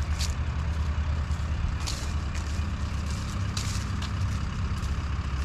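Large engine idling steadily, a low drone, with a few short hisses over it.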